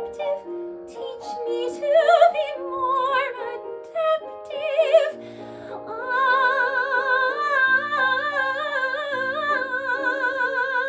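A woman singing operatically with piano accompaniment: a few short phrases with wide vibrato, then from about six seconds in a long held high note with vibrato over sustained piano chords.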